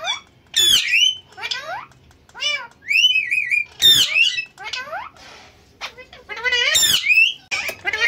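Caged Alexandrine parakeets squawking in a rapid string of shrill, short calls that swoop up and down in pitch. One call near the middle warbles, and there is a brief lull a little past halfway.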